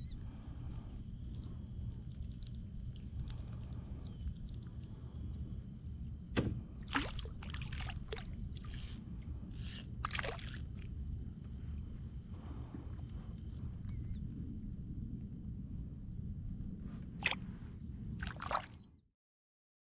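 Water sloshing against a plastic kayak under a steady low rumble, broken by sharp splashes and knocks from about six to ten seconds in and again near the end as a hooked bluegill is brought in and handled. The sound stops abruptly about a second before the end.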